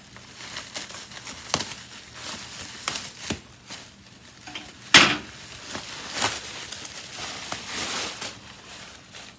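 Plastic packaging crinkling and rustling in irregular bursts as the vacuum and its cable are unwrapped. There is a sharp knock about five seconds in, and a lighter one a second later.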